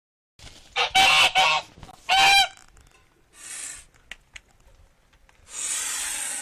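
A goose honks loudly a few times, then changes to hissing: one short hiss, then a longer one near the end. The hiss is the goose's warning sound when it feels threatened.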